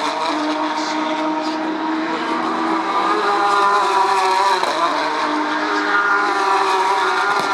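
Porsche 911 GT3 Cup race cars' flat-six engines running hard, several engine notes overlapping and stepping in pitch, with a marked drop about four and a half seconds in.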